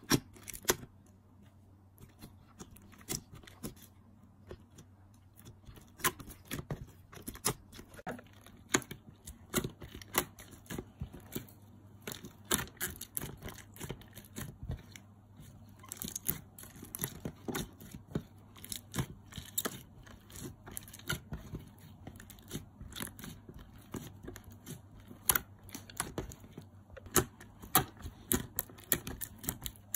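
Glittery slime being kneaded and squeezed by hand, giving irregular sticky pops and crackles, several a second at times.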